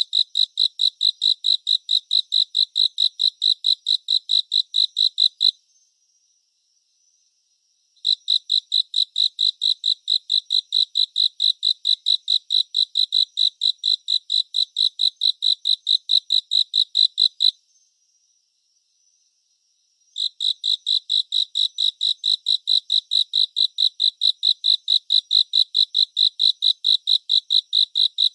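A cricket chirping: a fast, even run of high-pitched pulses, about four a second. It breaks off twice for a couple of seconds before starting again, and a fainter, higher insect trill carries on through the pauses.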